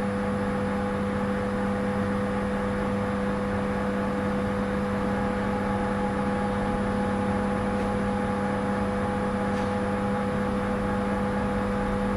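Train standing at a station platform, its electrical equipment and blowers humming steadily with several constant tones.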